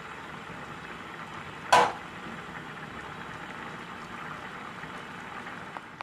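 Pan of minestrone soup simmering and bubbling while a wooden spatula stirs it. A single short, sharp knock about two seconds in is the loudest sound.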